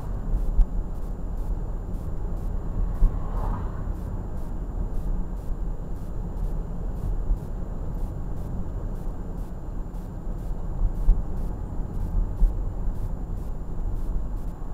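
Car driving on a town street, heard through a dashcam microphone inside the cabin: a steady low rumble of engine and tyres, with a few brief knocks from bumps in the road.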